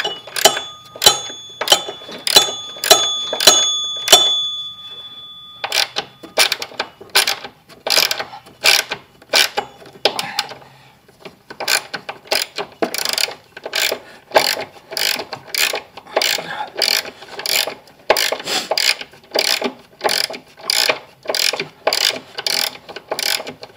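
Hand ratchet clicking in quick repeated strokes while tightening the upper mounting nuts of a car's rear shock absorber, with a short pause about four seconds in.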